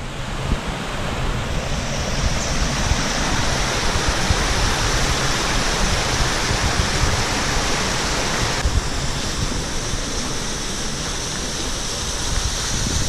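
Small rocky stream rushing and splashing over stones, a steady hiss of running water that eases a little about two-thirds of the way through.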